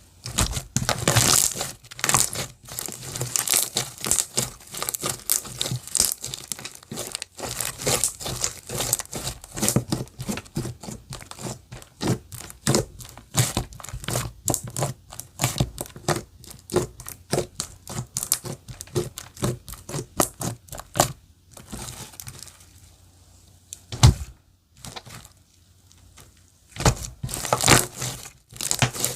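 Clear slime being squished, stretched and pressed by hand, giving dense runs of sticky clicks, pops and crackles. The crackling thins out about two-thirds of the way through, with one sharp knock, then picks up again near the end.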